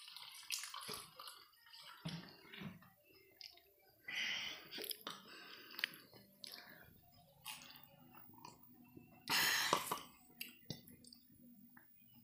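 A person eating buras (rice cake wrapped in banana leaf) with his fingers: chewing and mouth sounds with small clicks, and a few short noisy bursts, the loudest about nine and a half seconds in.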